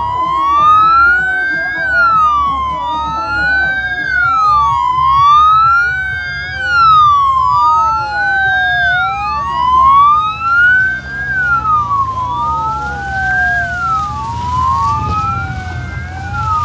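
Two wailing sirens sounding together. Each glides steadily up and down about every two and a half seconds, out of step with the other, so their pitches keep crossing.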